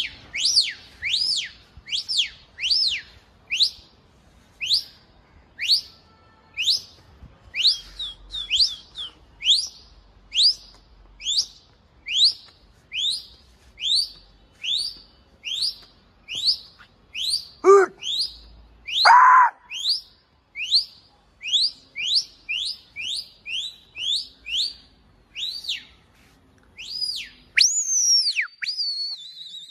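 A pigeon flier's repeated sharp whistles, about one and a half a second, each rising and falling in pitch: the call used to keep a released flock of pigeons circling overhead. Two brief lower calls sound about two-thirds of the way through, and near the end a longer whistle slides up and down.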